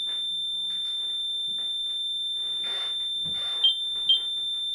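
REM pod ghost-hunting sensor alarming with one steady high-pitched tone, which jumps briefly twice near the end. The alarm means something has disturbed the field around its antenna, which the investigators take as a spirit's response.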